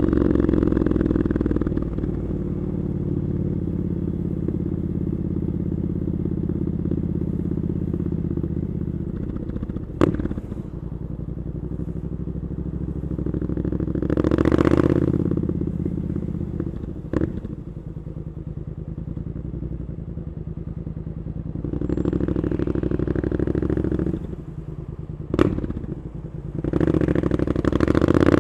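Triumph Scrambler 900's 900 cc parallel-twin engine through Arrow exhaust pipes, running steadily at low revs with a few swells in throttle. There are three sharp clicks along the way, and it revs up at the very end.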